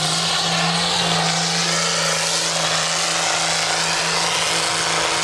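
Trial truck's diesel engine held at high, steady revs under full load as the truck climbs a steep loose-rock slope, pouring out black smoke.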